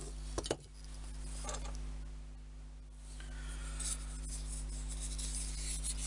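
Small handling noises as sealed balsa model wheels are picked up and turned in the fingers: a couple of sharp clicks about half a second in, then light rubbing and scratching. A steady low hum runs underneath.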